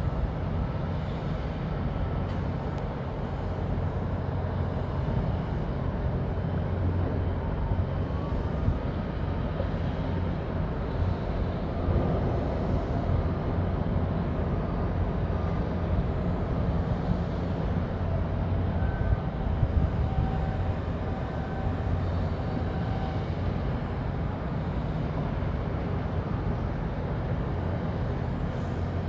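Steady low rumble of outdoor harbour background noise, uneven in level, with faint distant machinery tones above it and a few brief high chirps about two-thirds of the way through.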